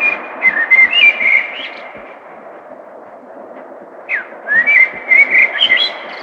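A songbird singing two short phrases of quick chirps and whistled notes, one at the start and one about four seconds in, over a steady hum of city traffic noise.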